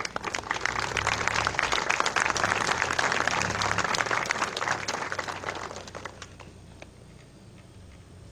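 Audience applauding: clapping builds quickly, stays dense for about five seconds, then thins out and dies away about six seconds in.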